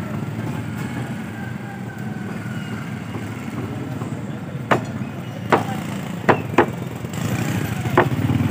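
Sharp knocks of a cleaver chopping fish on a wooden log chopping block: five irregular strikes in the second half. A steady low engine hum runs underneath.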